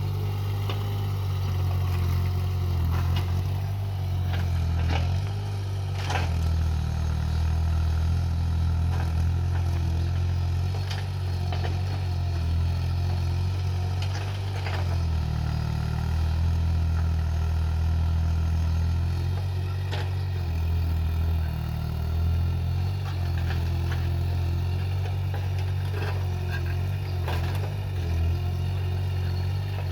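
Excavator engine running steadily, its level rising and falling every few seconds as it works, with a few sharp clanks scattered through.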